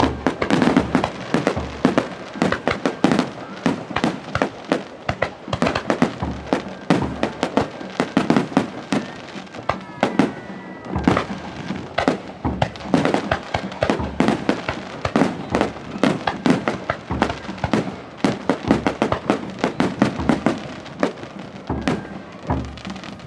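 Aerial fireworks shells bursting in a dense, rapid barrage: many sharp bangs a second with crackling, all the way through.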